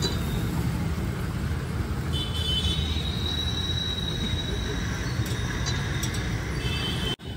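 Steady low rumbling background noise of a street, like passing traffic, with a faint high-pitched tone coming and going.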